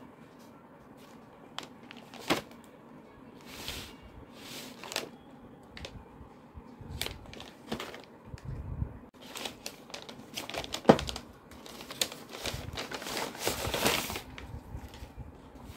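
Brown paper mailer envelope being handled and opened: crinkling and rustling of the paper with a few sharp knocks, then a dense burst of rustling near the end as a pencil tin is slid out of it.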